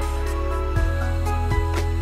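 Background music with sustained low notes and occasional percussive hits.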